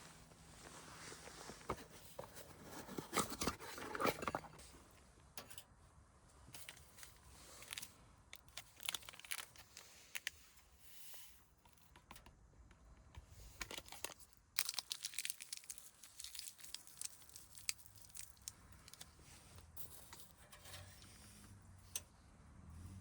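Hands tearing and crinkling fire-starting material, with many scattered sharp cracks and a dense flurry of them about three to four seconds in.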